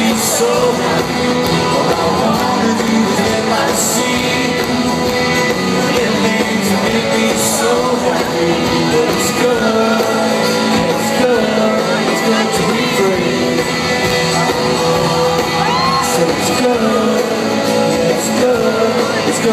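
Live rock band playing with a sung vocal in a large hall, with audience shouts and whoops over the music and a few cymbal-like crashes.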